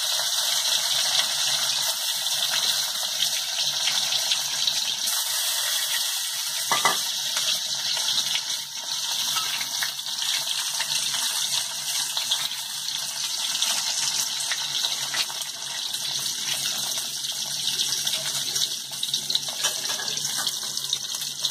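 Boiled eggs coated in turmeric and salt sizzling steadily as they fry in hot oil in a kadai, with a fine continuous crackle.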